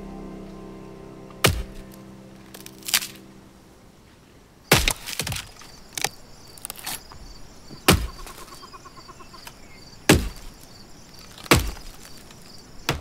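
Axe splitting firewood on a wooden chopping block: a series of about seven sharp strikes, one every second and a half to two seconds. Under the first few seconds a held musical chord fades out, and a faint high chirping runs behind the later strikes.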